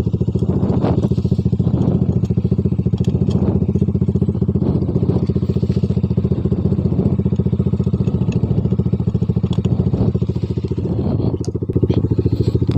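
Motorcycle engine idling steadily through an SC Project aftermarket muffler, with a loud, even exhaust beat.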